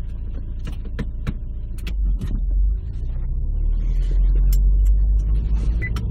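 Subaru Legacy BL5 running with a low, steady rumble that gets louder about two seconds in, with irregular sharp clicks and knocks over it: the abnormal noise the car is being checked for.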